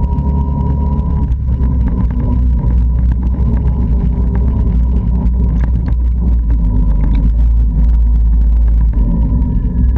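Can-Am Outlander 650 ATV's V-twin engine running steadily while the quad is ridden over gravel, heard close up from the machine itself.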